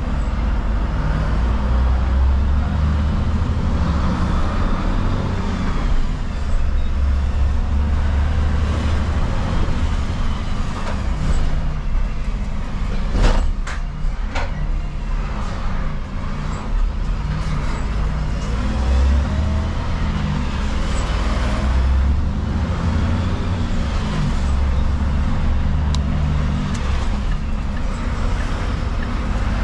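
Refuse collection truck's engine running, its pitch rising and falling with the revs, with two sharp knocks about halfway through.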